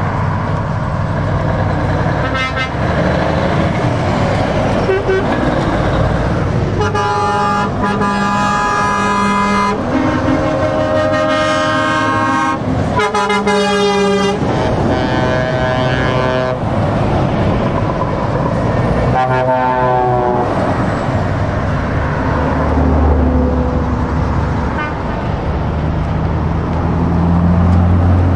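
Passing trucks with their diesel engines running and tyres on the road, and truck horns sounding in several long blasts between about seven and seventeen seconds in, with another blast around twenty seconds in.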